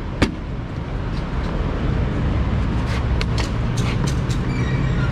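Motorcycle engine running with steady road and wind noise, the engine note growing steadier about halfway through, with a few sharp clicks in the second half.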